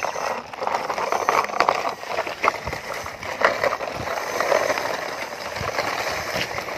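Plastic toy dump truck pushed by hand through a shallow muddy puddle: water sloshing and splashing around its wheels, with many small clicks and rattles from the plastic toy.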